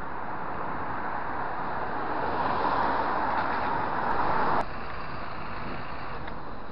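Rushing wind on the microphone and road noise from a road bike in motion, swelling over a couple of seconds and then cutting off abruptly a little past halfway, leaving a quieter steady traffic noise.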